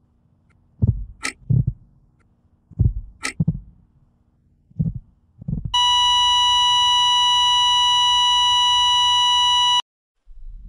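Heartbeat sound effect: spaced low thumps with a few sharp clicks, slowing down. About five and a half seconds in, a loud steady beep like a heart monitor's flatline tone sets in; it holds for about four seconds and cuts off suddenly.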